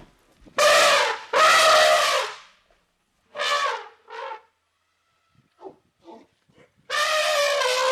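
Elephant trumpeting: two loud, brassy calls about a second long each, then two shorter calls, a few faint squeaks, and another long call beginning near the end.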